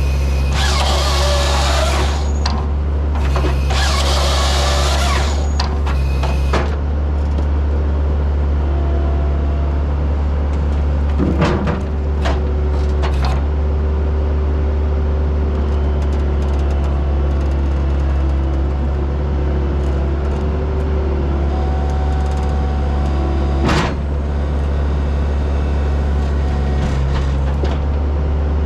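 Bobcat T190 skid steer's diesel engine running steadily under hydraulic load as it powers a Halverson 140B firewood processor. Two rushing noise bursts, each about two seconds long, come near the start. Sharp knocks come once about a third of the way in and again near the end.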